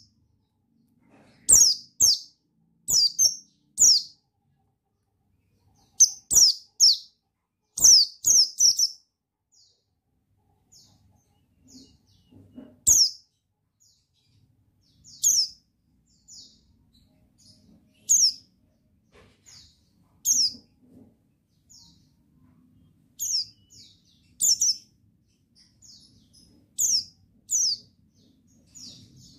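White-eye (pleci buxtoni) calling: short, high chirps that drop in pitch. They come in quick clusters of two to four, every second or two, with silent gaps between, and a few sharp clicks among the early calls.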